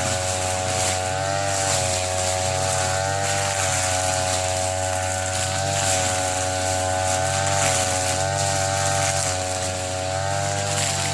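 TB33 brush cutter's two-stroke engine running at high speed while cutting thick grass, its pitch wavering slightly up and down every second or two.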